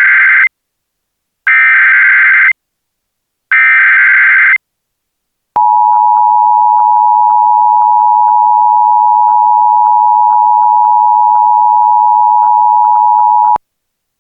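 Emergency Alert System header on NOAA Weather Radio: three one-second bursts of screeching digital SAME data, about two seconds apart, encoding the alert (here a Fire Warning). Then the NOAA Weather Radio warning alarm, a single steady 1050 Hz tone, held for about eight seconds with faint clicks over it before cutting off sharply.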